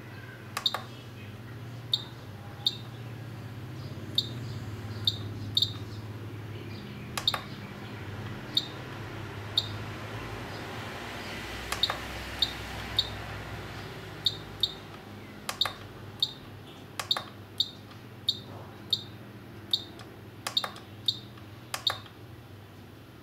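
JR Propo XG-7 radio-control transmitter giving short, high beeps, one for each press or turn of its programming keys and dial, coming irregularly and more often in the second half, some with a sharp click. A steady low hum runs underneath.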